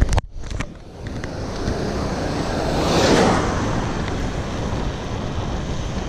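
Wind rushing over the microphone as a bicycle rolls downhill on pavement. The noise cuts out sharply just after the start, then swells to its loudest about halfway through.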